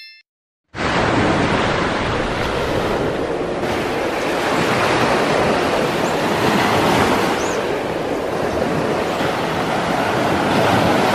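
Surf washing onto a sandy beach: a steady rush of breaking waves that starts about a second in.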